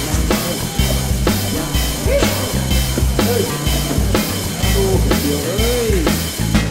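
Background rock music: a drum kit keeps a steady beat of about two strikes a second over a stepping bass line, with a few sliding higher notes.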